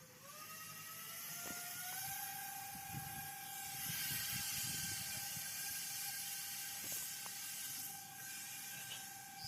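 Brushless electric motor spinning a fan propeller on an RC airboat: a whine that climbs in pitch over the first two seconds as it speeds up, then holds steady, over a hiss.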